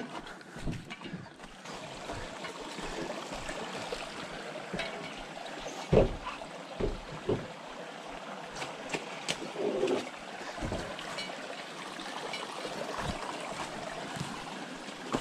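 A small creek trickling among rocks, with scattered thuds of steps and gear knocking on stone; the loudest thud comes about six seconds in.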